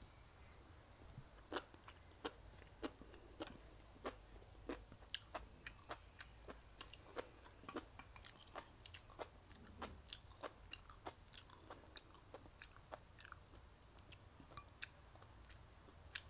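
Close-up chewing and biting of spicy mala stir-fry with pork: a quick, uneven run of small wet mouth clicks and crunches, about two or three a second.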